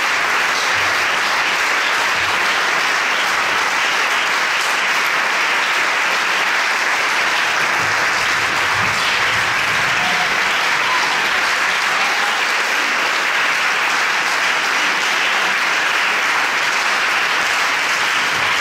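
Audience applauding steadily at a curtain call: dense, even clapping that holds at one level without letting up.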